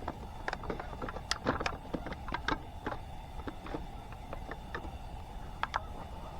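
Irregular sharp crackles and pops from a wood campfire, with bread dough frying in an oiled pan set over it.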